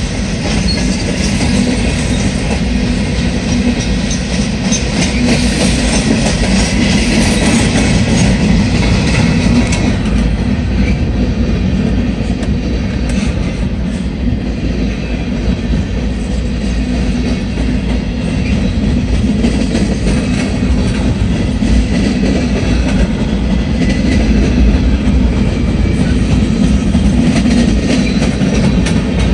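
A freight train of loaded steel-coil cars rolls past at close range with a steady heavy rumble and the clack of wheels over the rails. A harsher high hiss rides on top for about the first ten seconds, then eases.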